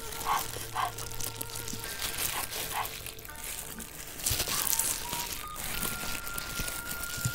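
Wet, sticky tearing of sauce-soaked beef rib meat pulled apart by a hand in a crinkling plastic glove, heard as scattered crackles and clicks.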